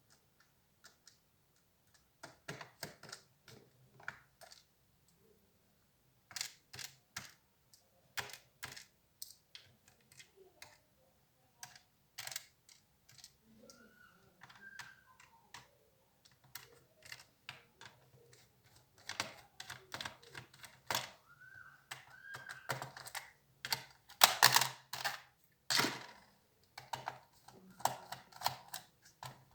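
Irregular small clicks and taps of plastic and metal laptop parts being handled while an HP Compaq 6910p laptop is taken apart. They are sparse at first and come thicker and louder in the last third.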